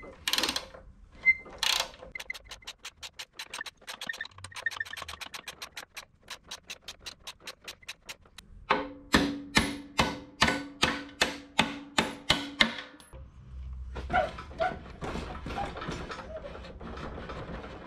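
Hand ratchet wrench clicking as a nut is backed off the hydraulic cylinder's pin bolt: a long run of quick light clicks, then louder clicks about three a second. Near the end, a few seconds of metal scraping and handling as the nut is worked with pliers.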